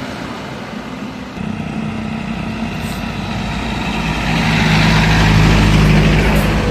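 A heavy vehicle's engine running steadily and drawing closer, growing loudest about five to six seconds in, then easing off slightly near the end.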